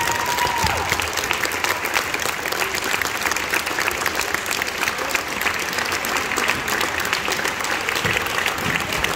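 Audience applauding, a dense, steady patter of many hands clapping. A high held tone dies away in the first second.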